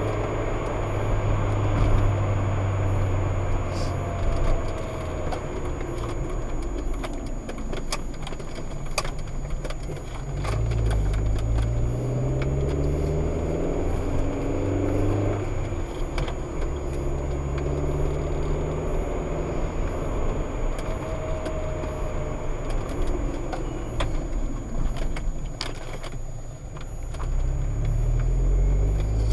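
Car engine and road noise heard inside the cabin while driving, the engine note rising several times as the car accelerates, with scattered light clicks and rattles.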